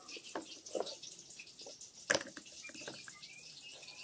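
Kitchen knife slicing kamias fruit thinly on a plastic cutting board: a handful of short, irregular cutting taps, the loudest about two seconds in.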